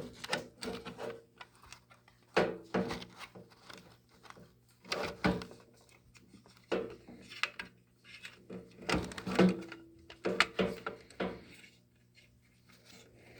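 Irregular clicks and clunks, a few seconds apart, from a Siemens MS-51 manual fire alarm pull station being handled as someone tries to push it back and reset it one-handed.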